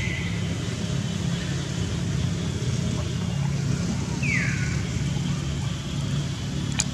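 Baby monkey crying: two short, high cries, each falling in pitch, about four seconds apart, over a steady low hum. A sharp click sounds near the end.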